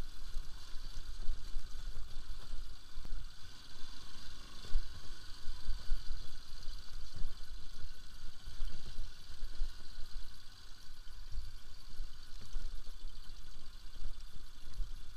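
Bajaj Pulsar RS200 motorcycle running as it is ridden over a rough dirt track, with uneven low thumps and jolts from the bumps over a steady hiss.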